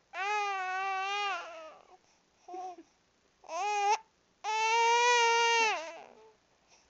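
Baby crying in four high-pitched wails: a long wail at the start, two short cries, then a longer, louder wail about four and a half seconds in. She is crying over a bout of hiccups.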